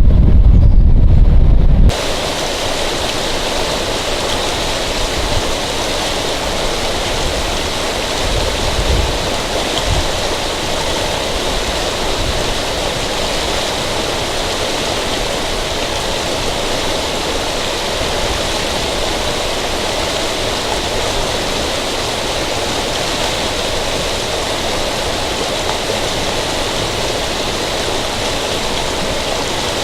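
Low wind rumble on the microphone, which cuts off suddenly about two seconds in, followed by a steady rushing noise like running or falling water.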